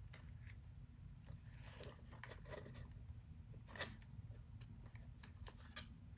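Faint rustling and light taps of cardstock as a small paper treat box's lid is handled and fitted back on, with one slightly sharper tap about four seconds in.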